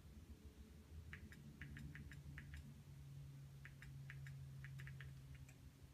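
Faint runs of quick clicks, in two bursts of about half a dozen each, as the Fire TV Stick's settings menu is stepped through with its remote, over a steady low hum.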